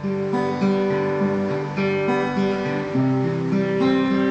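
Acoustic guitar being played without singing, a run of chords whose notes change every half second or so.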